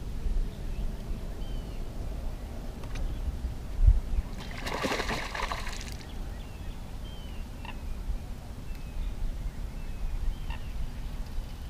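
A bass splashing at the surface as it takes the lure, a rush of water lasting about a second and a half, just after a sharp low thump on the boat. Small birds chirp faintly now and then over a low wind rumble.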